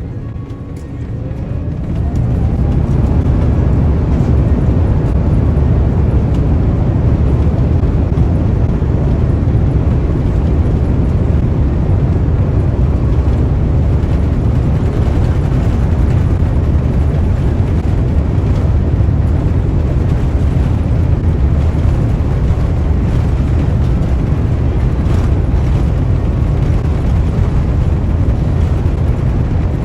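Airbus A350's Rolls-Royce Trent XWB engines spooling up to takeoff thrust: a rising whine and swelling level over the first two seconds, then a loud, steady, deep rumble of full power through the takeoff roll.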